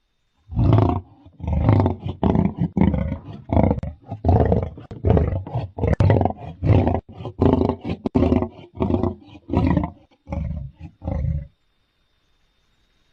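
Lion-type big-cat roaring sound effect: a bout of about fifteen short, deep roaring grunts in quick succession, which stops a little before the end.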